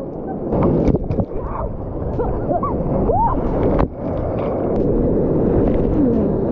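Breaking surf churning and splashing over a camera held at water level, with water washing across the microphone and a few short bubbling gurgles about halfway through.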